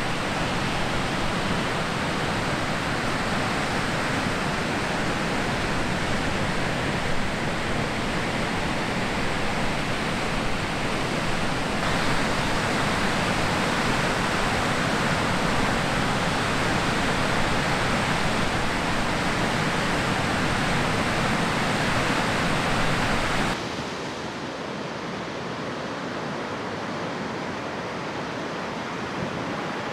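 Ocean waves breaking on the beach, a steady loud wash of noise. About two-thirds of the way through it becomes quieter and duller.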